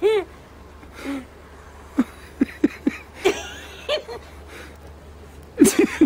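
A woman laughing in short, breathy bursts: a run of quick chuckles about two to four seconds in, then a louder burst of laughter near the end.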